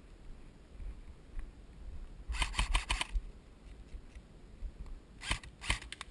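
Two short runs of rapid, sharp clicks, about two and a half seconds in and again about five and a half seconds in, over a low rumble.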